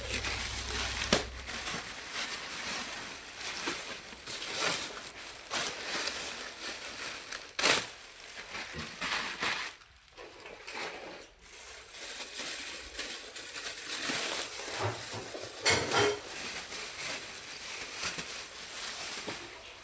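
Packaging being handled and opened: irregular crinkling and crackling with scattered sharp clicks, briefly quieter about ten seconds in.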